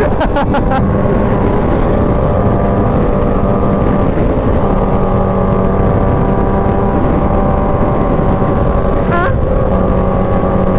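Supercharged inline-four of a 2016 Kawasaki Ninja H2 running at a steady freeway cruise, its pitch holding almost level, with wind noise over the microphone. A few sharp clicks come in the first second.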